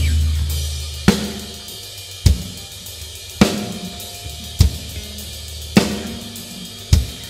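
Live band's drum kit playing single slow hits, a low drum with a cymbal together, about once every second, six in all. Under them a loud low held note fades away slowly. This is the sparse opening of a song before the full band comes in.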